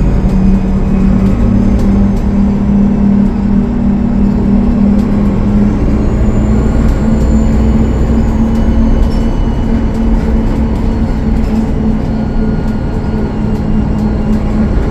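Cummins ISL9 inline-six diesel of a 2013 Gillig Low Floor transit bus running under way, a steady drone whose pitch steps up about five seconds in. A faint high whistle swells and fades around six to eight seconds in, over light rattling clicks.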